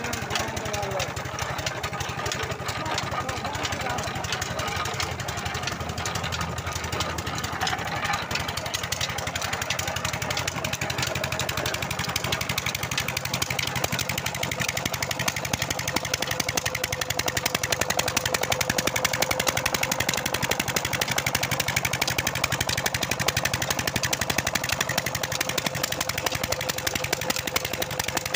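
Small stationary engine running steadily with a rapid even beat, driving a sugarcane crusher's rollers through a flat belt.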